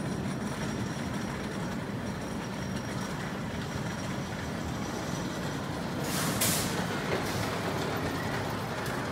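Wooden roller coaster train rumbling steadily along its track, with a short loud hiss about six seconds in.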